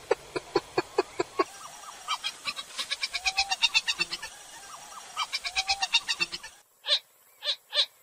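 Purple swamphen (kalim) calling: a fast run of short, repeated clucking notes that crowd together and overlap in the middle, with a few longer drawn-out notes among them. About six and a half seconds in the background drops out suddenly, leaving three separate calls.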